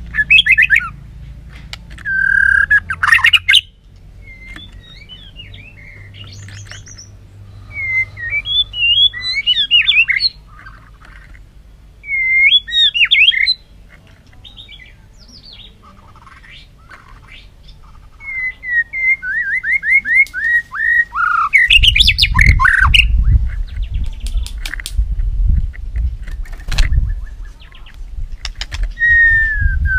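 White-rumped shama singing a heated fighting song: loud, varied phrases of quick rising and falling whistles, broken by short pauses and mixed with harsh, clicky notes. From about two-thirds of the way in, a low rumble lies under the song.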